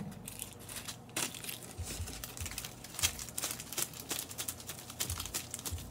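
Frankincense incense packaging crinkling and crackling as it is handled, in short irregular bursts of small crackles and ticks.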